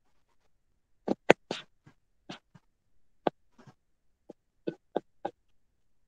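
A stylus tapping and scratching on a tablet screen during handwriting: about a dozen short, irregular clicks, the loudest a little over a second in.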